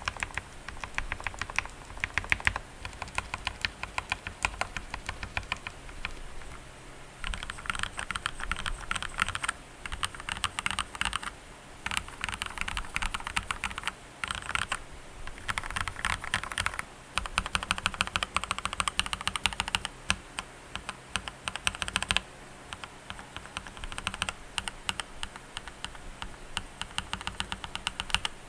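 Typing on an Akko World Tour Tokyo R1 tenkeyless mechanical keyboard that has non-hot-swap switches partially lubed in place, stabilizers packed with dielectric grease, and foam and tape mods. Fast streams of keystrokes come in runs with short breaks between them.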